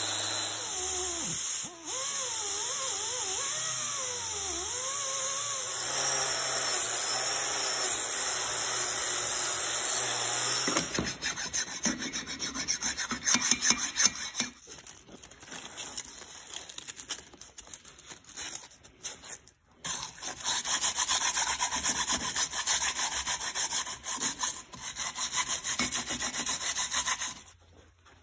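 Angle grinder with a wire wheel scouring rust and old paint off a cast-iron vise part, its whine wavering as it is pressed into the metal. About eleven seconds in, the steady run gives way to uneven scraping that stops and starts.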